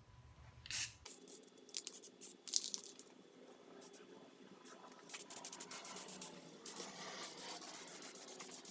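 A light knock as the metal part is set down on cardboard, then an aerosol spray-paint can hissing, first in short bursts and then more steadily for the last few seconds, as the part gets its coat of paint.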